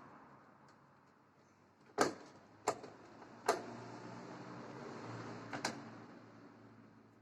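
Four sharp clicks and knocks spread over a few seconds, from small parts being handled while a car's brake-light fitting is worked on by hand.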